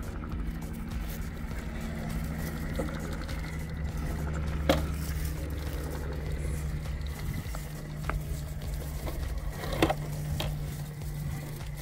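Electric RC rock crawler trucks, a straight-axle Axial Capra and a Vanquish build, whirring steadily from their motors and geared drivetrains as they crawl over rock. Two sharp knocks, just before halfway and near the end, as tyres or chassis strike the stone.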